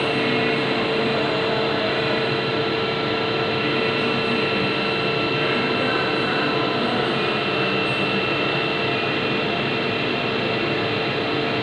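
CNC milling machine running and cutting, with a steady whine held over dense, even machining noise.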